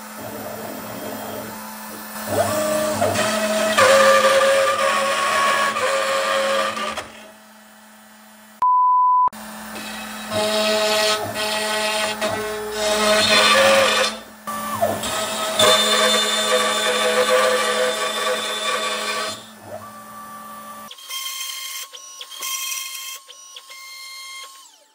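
Makita compact router on a CNC machine milling melamine-faced particle board with a 1/4-inch upcut end mill at 18,000 RPM: a steady motor hum with shifting cutting tones, the upcut bit giving off a lot of vibration and chatter. About nine seconds in, a short steady beep briefly replaces the sound, and near the end the cutting stops, leaving a fainter hum.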